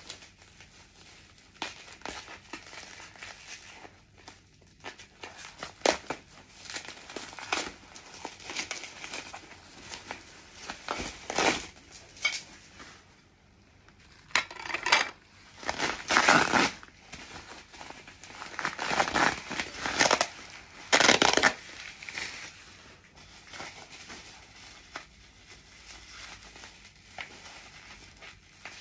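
Bubble wrap crinkling and rustling in irregular bursts as it is handled and pulled away from ceramic plates, with several louder bursts past the middle.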